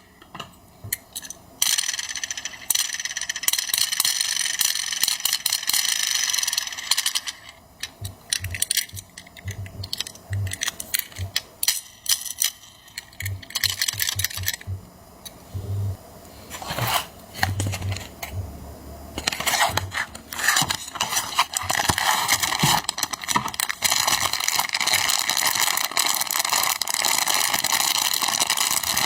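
Toy packaging being handled: crinkling and crackling with many small clicks and light rattles. There are two dense stretches, at the start and over the second half, with sparser clicks between.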